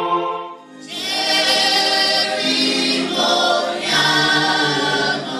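A choir singing held chords; a new phrase comes in about a second in, and the singing fades out near the end.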